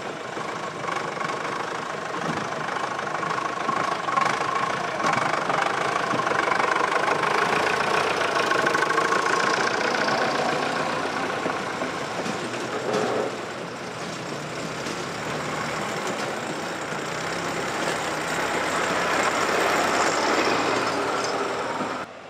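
Vintage tractor engines running as tractors pull up out of a ford and pass close by, the engine noise swelling twice as each draws near, then cutting off abruptly near the end.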